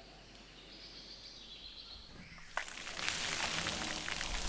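Faint rainforest ambience, then heavy rain starting suddenly about two and a half seconds in: a dense hiss of falling rain with many small drop ticks.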